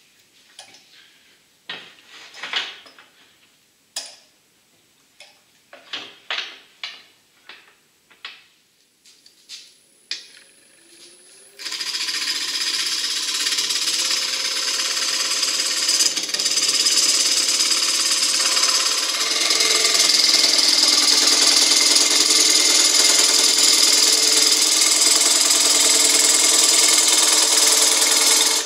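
Scattered knocks and clatter as the wood lathe's tool rest is set and tools are handled. About eleven seconds in the lathe spins up. From then on a long-handled gouge cuts the spinning ash bowl with a loud, steady hiss of wood being cut away, which stops abruptly near the end as the tool comes off.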